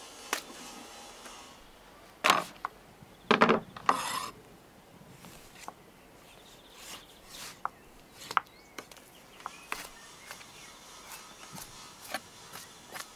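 A knife slicing raw lamb on a wooden cutting board: scattered light clicks and scrapes of the blade through meat and against the board. A few louder knocks and rubbing sounds of handling come about two to four seconds in.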